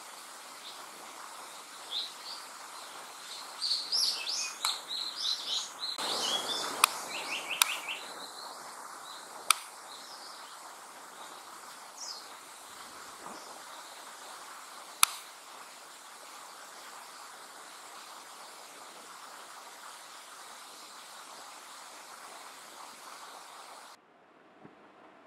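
Japanese paradise flycatcher singing from the canopy: a burst of high whistled notes that ends in a quick run of repeated lower notes. A few sharp clicks are heard over a steady forest hiss, and the sound drops away abruptly near the end.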